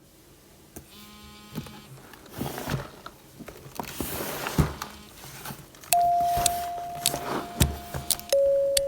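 Packaging being handled during an unboxing: rustling and crinkling with scattered light clicks and taps. About six seconds in, background music begins with a held electronic note that steps down to a lower note just past eight seconds.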